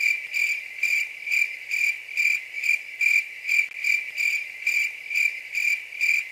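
Cricket chirping sound effect: an even, steady chirp about twice a second that begins suddenly, the stock comic stand-in for an awkward silence.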